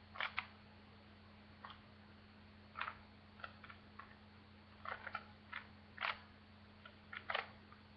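Plastic speed cube clicking as its layers are turned by hand, in irregular single clicks and quick bursts of two or three, over a low steady hum.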